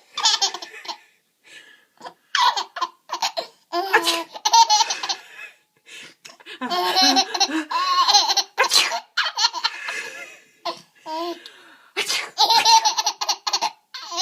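A seven-month-old baby laughing hard in about four fits of belly laughter, with short pauses between them.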